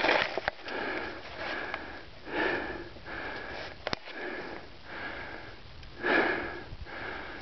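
Repeated sniffing and breathing close to the microphone, in uneven swells about once a second, with a faint whistle in many of them.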